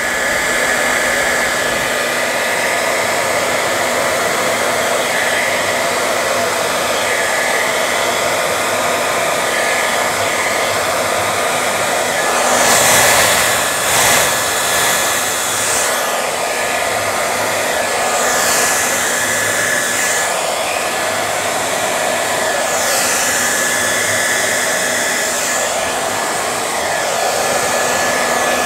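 Handheld hair dryer running steadily, blowing liquid acrylic paint across a canvas in a Dutch pour. The rushing air rises in a few louder, hissier swells as the dryer is moved over the paint.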